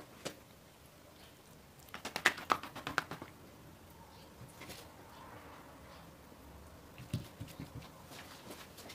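Oiled sheets of thin dough being peeled apart and lifted by hand on a wooden board: a quick run of sticky clicks and smacks about two seconds in, then a few soft thuds near the end.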